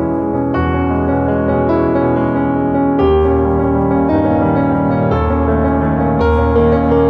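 Background piano music, with sustained chords struck every second or two.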